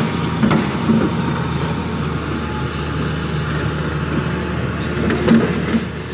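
Crawler excavator's diesel engine running steadily, with a few short knocks, the loudest about five seconds in.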